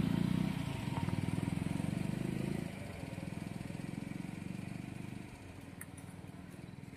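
Motorcycle engine running with a low, even putter that grows quieter in two steps, about a third and three quarters of the way through, as if moving away.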